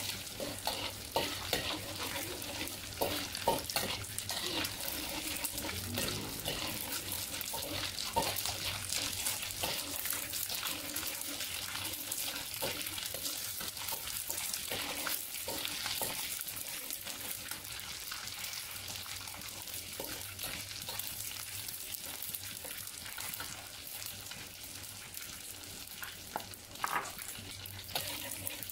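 Dried anchovies sizzling in hot oil in a wok, stirred and turned with a metal spatula that scrapes and clicks against the wok again and again over a steady frying hiss.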